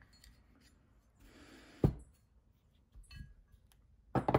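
The steel slide of a CZ 97B pistol and its small parts being handled on a rubber bench mat: one sharp knock about two seconds in, and a quick run of knocks near the end.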